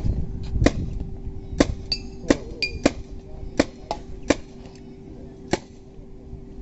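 Air-rifle shots at a shooting stall: a series of sharp, irregularly spaced cracks, about five loud ones, with a couple of short metallic rings about two to three seconds in, over a faint steady hum.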